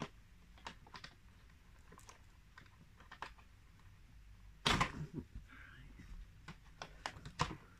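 Scattered light clicks and taps of hands handling the Feiyue FY04 RC quad bike's body shell, with a louder clatter of clicks about five seconds in.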